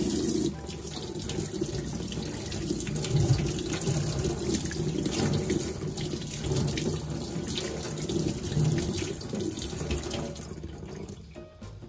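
Kitchen tap running into a stainless steel sink, the stream splashing over a zucchini held under it. The water dies away near the end.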